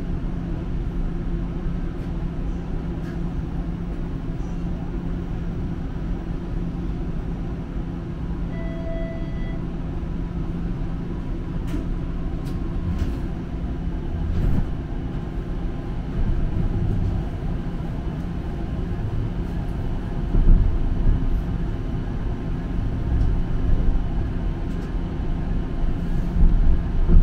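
Interior of a Toronto streetcar under way: a steady low rumble and motor hum, with a few sharp clicks and knocks from the running gear. A short tone sounds about nine seconds in, and there are heavier low thumps near the end.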